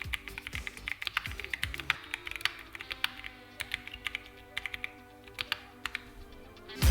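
Typing on a Keychron V3 Max gasket-mount mechanical keyboard: quick, irregular keystroke clicks that thin out after about three seconds, over quiet background music.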